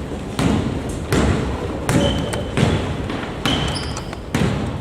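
A basketball being dribbled on an indoor court, six echoing bounces in a steady rhythm about one every three-quarters of a second. A few short high squeaks come in between the bounces from about halfway through.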